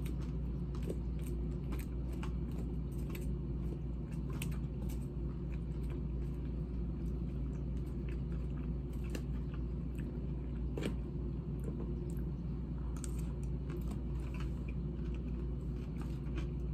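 Close-up chewing and crunching of a romaine lettuce salad, with many sharp crisp crunches scattered through. A steady low hum of air conditioning runs underneath.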